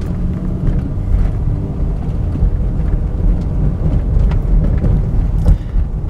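Steady low rumble of a car's engine and road noise heard from inside the cabin while driving slowly, with a few faint clicks.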